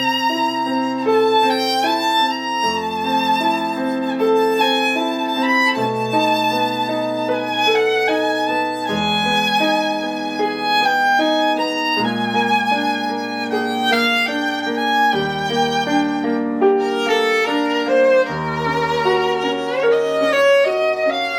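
Violin playing a melody with vibrato over piano accompaniment, the piano's bass and chords changing about every three seconds.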